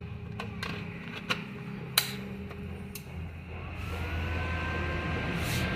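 Eastman e-rickshaw battery charger powering up: a few sharp clicks, then a whine that rises and settles into a steady tone over a low hum as the unit comes on.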